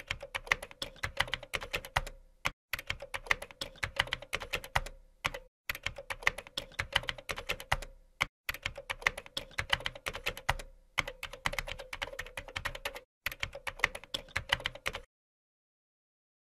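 Typing sound effect: rapid computer-keyboard key clicks in runs broken by short pauses, stopping about a second and a half before the end.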